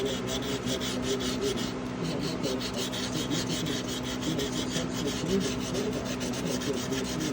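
Rapid, even back-and-forth abrasive rubbing strokes on the pocket knife, about six a second, like hand sanding or filing, over a steady low hum.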